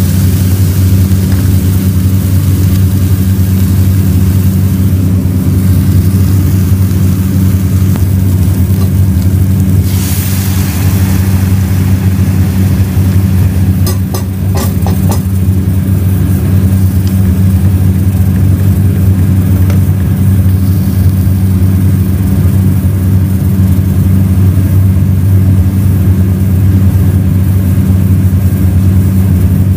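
A steady low mechanical hum runs throughout. About ten seconds in a hiss swells up as liquid goes into the hot pot of fried chicken and vegetables and starts to bubble, and a few quick knocks of a wooden spoon against the pot follow around fourteen seconds.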